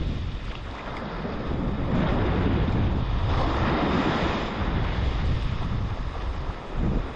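Wind buffeting the microphone with a steady low rumble, over small waves washing up and foaming on the sand.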